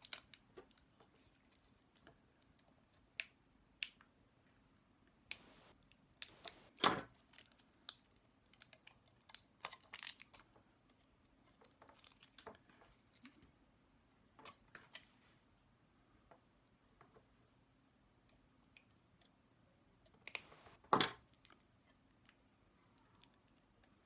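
Scattered small clicks, crinkles and rustles of fingers working the stripped end of a shielded CAT5e cable, tearing away its cellophane wrap and handling the wires, with a couple of sharper knocks about seven seconds in and again near the end.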